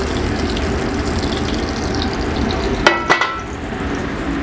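Steady frying sizzle from a hot, oiled cast iron skillet. About three seconds in come two sharp metallic clanks close together, with a short ring, as the skillet is set back down on the gas stove's iron grate.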